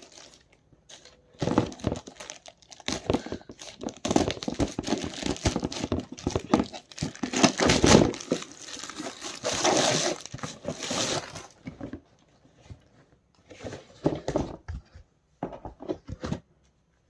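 Parcel packaging being torn open and crinkled by hand: irregular rustling and ripping, loudest in the middle, thinning to a few short handling sounds near the end.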